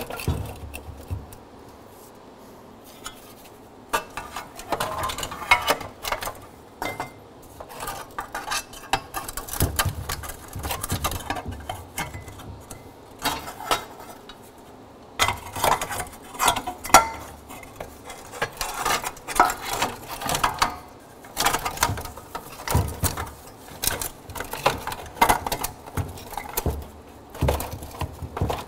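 Thin sheet-metal heat shields and a steel exhaust manifold being handled on a wooden workbench: irregular clinks, rattles and knocks of metal parts as the shields are fitted onto the new manifold.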